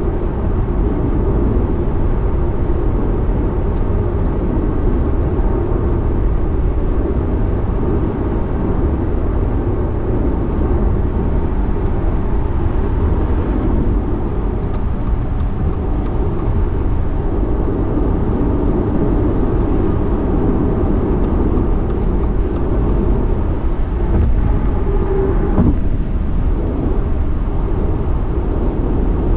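Steady road noise of a car cruising at highway speed, heard from inside the cabin: a constant low rumble of tyres and drivetrain.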